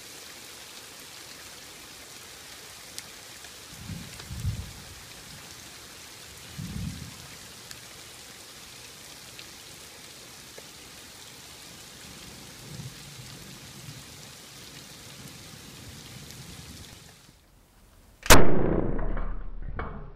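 Steady hiss of rain, with a couple of soft low thumps, then about two seconds before the end a single sharp, loud crack of a Steambow air-powered crossbow firing at a deer, fading away over a second or so.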